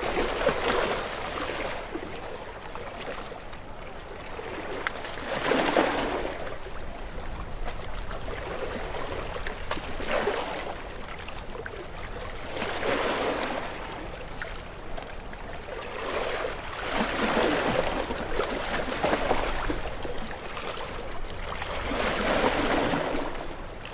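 Small waves washing in and drawing back on a shore, a swell of water noise about every few seconds, seven in all, over a steady low rumble of breeze.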